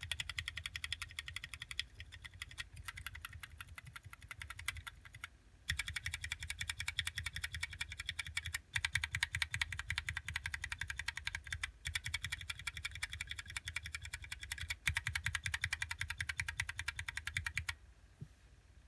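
Fast typing on tactile mechanical keyboard switches (Zealios 67g, Gateron Clear and Cherry MX Clear), a dense run of key clicks in several stretches with brief pauses between them. The typing is quieter for a few seconds near the start, then louder, and stops shortly before the end.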